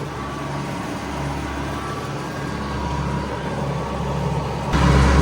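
Tractor engine running steadily, a low hum that suddenly gets louder near the end.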